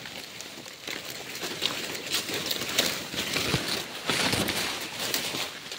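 Footsteps and rustling through dry leaves and brush, with scattered crackles of leaves and twigs as someone pushes through the undergrowth.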